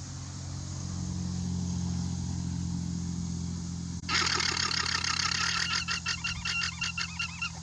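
A llama giving its shrill alarm call, a rapid, repeating series of high-pitched notes that starts about four seconds in. Under it a steady low mechanical hum runs throughout.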